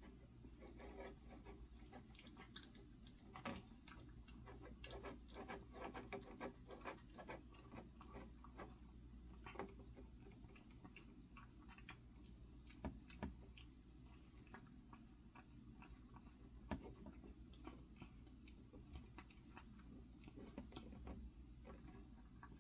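Faint, irregular clicking and smacking of a cat eating, many small mouth sounds at an uneven pace over a low room hum.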